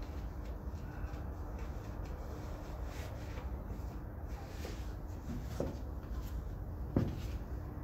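High heels tapping on a tiled floor: a few scattered, faint heel clicks, with one sharper knock near the end, over a steady low hum.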